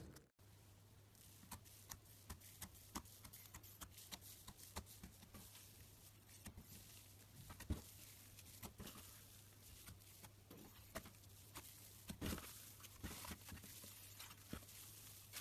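Fluffy slime being stretched and squished by hand, giving faint, scattered crackles and small sticky pops over a steady low hum.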